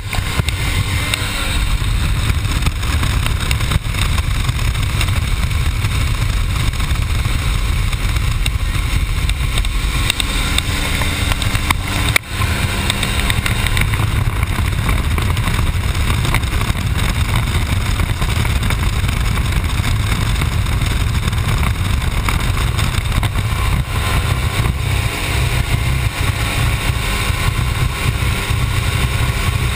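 Steady drone of a light aircraft's engine and propeller with rushing wind, heard from inside the cabin of a climbing jump plane. The sound cuts out for an instant about twelve seconds in.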